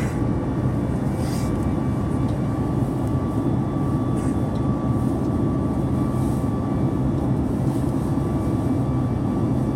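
Steady cabin noise of a Boeing 737 MAX 8 in flight, heard from inside the passenger cabin: an even drone of engines and airflow with a low hum and a thin steady tone.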